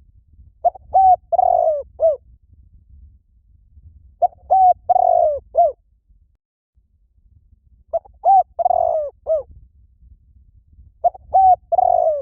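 Spotted dove cooing in four phrases about three and a half seconds apart. Each phrase is a few short coos around one longer rolling coo.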